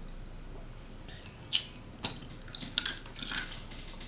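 Several light clicks and clinks of food and utensils being handled on a snack tray, with a brief soft rustle.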